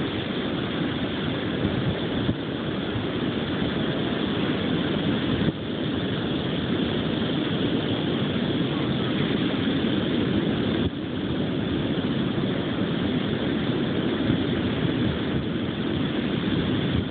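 Steady rushing noise of wind and surf at the beach on a phone's microphone, with a few abrupt small steps in level.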